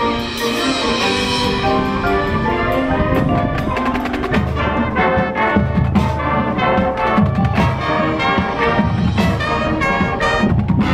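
High school marching band playing its field show: brass chords with front-ensemble mallet percussion, and a rhythmic percussion beat coming in about four seconds in.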